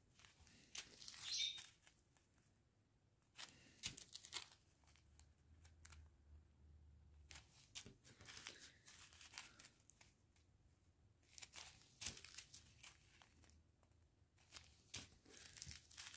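Small clear plastic zip bags of diamond-painting drills crinkling as they are handled and set down, in short irregular bursts.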